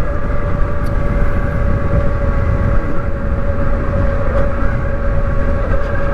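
Zero DSR electric motorcycle riding at a steady speed: a constant whine from the electric drive over heavy wind rumble.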